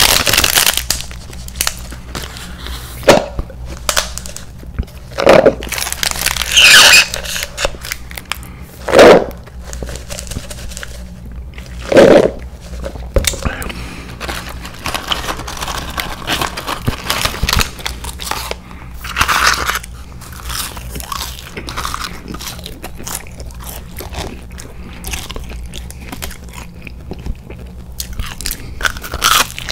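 A person eating close to the microphone: chewing throughout, broken by about half a dozen loud crunchy bites spaced a few seconds apart.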